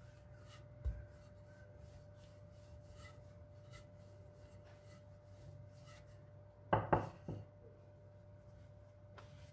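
Wooden rolling pin rolling out dough on a floured granite countertop: faint rubbing and light clicks, with a low thump about a second in and a quick cluster of louder knocks about seven seconds in, over a faint steady hum.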